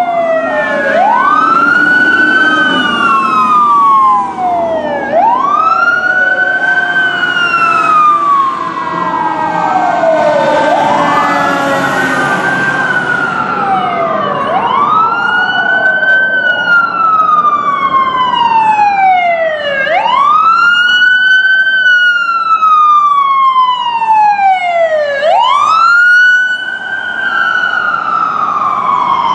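Fire apparatus siren wailing in slow, even cycles, each rising quickly and then falling slowly, about once every five seconds, with a second siren fainter and out of step in the first half. Under it, a large truck's engine can be heard in the first part.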